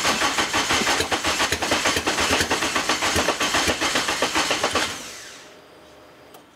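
Honda K24 four-cylinder engine cranking on the starter in quick regular pulses, turned over from the ignition wiring at the steering column; the sound dies away about five seconds in.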